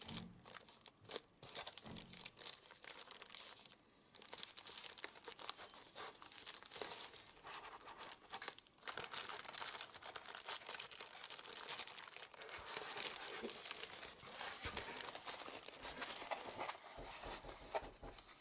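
Packaging being handled: packing material crinkling and tearing in a continuous rustle, with a few short pauses.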